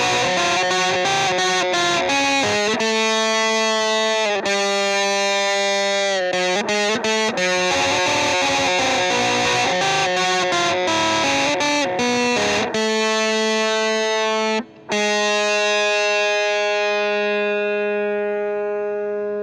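Distorted electric guitar music: sustained chords and riff changes, a brief break a little before the 15-second mark, then a long held chord that rings on and slowly fades.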